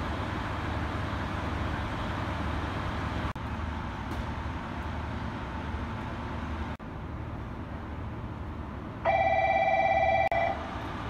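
Railway station platform ambience with a steady low rumble. About nine seconds in, an electronic platform bell rings loudly and steadily for just over a second, then cuts off.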